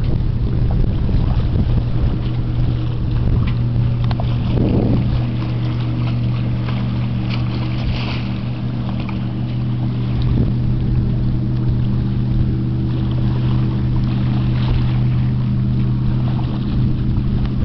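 Boat engine running at a steady speed: a constant low hum with wind blowing on the microphone.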